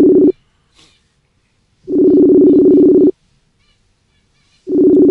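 Outgoing phone call ringing while waiting for an answer: a steady two-tone ring just over a second long, repeating about every three seconds. The first ring ends just after the start, a full ring follows about two seconds in, and another begins near the end.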